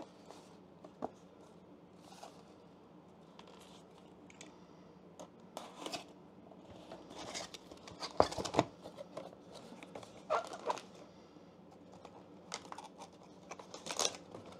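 Cardboard shipping box being handled and opened: irregular scraping, rustling and tearing of cardboard flaps, with a few sharp knocks. The loudest bursts come about halfway through and again near the end.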